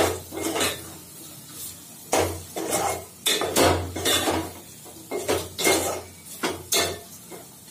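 A spoon scraping and clinking against the sides and bottom of a metal pot as chicken curry is stirred, in irregular strokes about every half second to a second.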